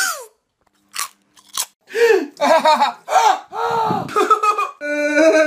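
A few sharp crunchy bites in the first second and a half, spaced roughly half a second to a second apart. Then, from about two seconds in, a man's drawn-out wordless voice rises and falls in pitch, ending in steady held tones.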